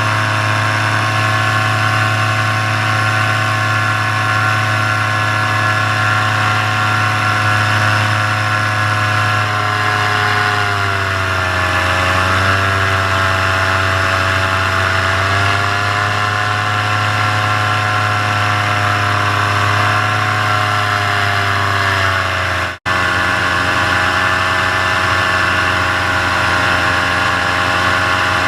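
Paramotor engine and propeller running steadily at full throttle in flight. Its pitch dips slightly about a third of the way in and wavers for a while, and the sound cuts out for an instant near the end.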